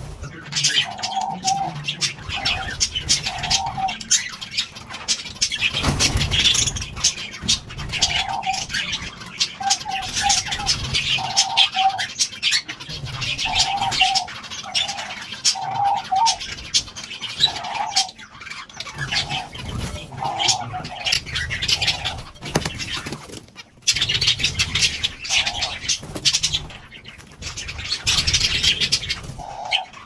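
Pigeons cooing in short repeated phrases, over a busy mix of high chirps and twitters from small birds.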